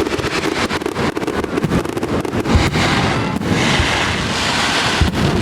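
Fireworks going off: a dense run of bangs and crackles over a steady rushing hiss, with a sharp bang near the end.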